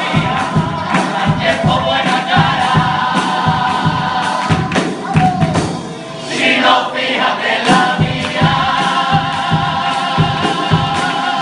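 Carnival murga chorus: a group of men singing together loudly over a steady drum beat, briefly dropping away about six seconds in.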